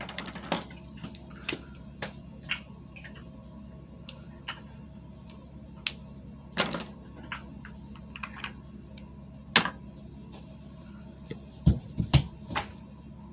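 Irregular light clicks and taps of small plastic makeup items being handled, as a mascara tube is picked up and opened, over a low steady hum; a quick cluster of taps comes near the end.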